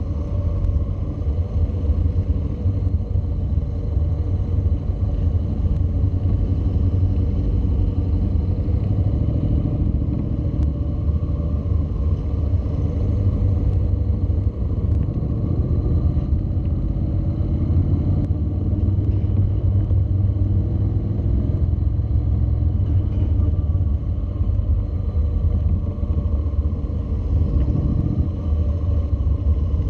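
Honda NC700's parallel-twin engine running at low speed, mixed with a steady low wind rumble on the microphone; the pitch rises and falls gently as it rides.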